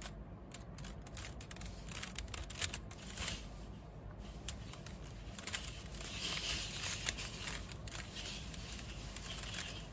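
Plastic 3x3 Rubik's cube being turned by hand, its layers clicking and scraping in quick runs of turns, busier in the second half. The turns repeat one algorithm to complete the yellow top face.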